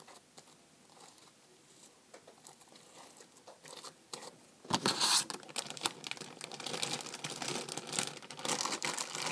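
Plastic zip-top bag crinkling and rustling as it is handled and opened, starting a little past halfway, after a few seconds of only faint scattered clicks.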